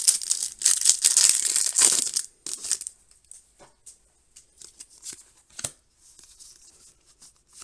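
Foil wrapper of a Pokémon card booster pack being torn open and crinkled for about two seconds, followed by a few faint crinkles and clicks of handling.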